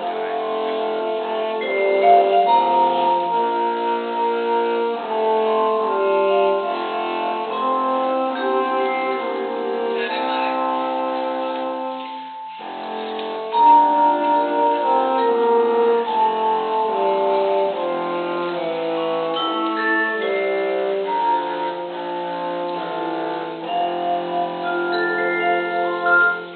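Small ensemble of marimba, saxophone and a low woodwind playing a Christmas carol arrangement, with held melody notes over mallet chords. The music runs in two phrases, with a short pause about twelve seconds in.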